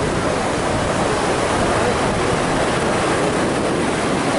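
Ocean surf breaking and washing up a sandy beach, a steady rushing wash of noise.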